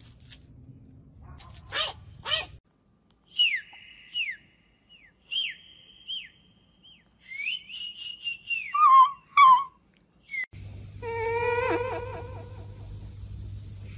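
Small dogs vocalising: a few short puppy yaps, then a run of high whistle-like whines that fall in pitch, one held longer, and two louder yelps. Near the end this gives way to a steady hum from a karaoke microphone's speaker with a wavering tone over it.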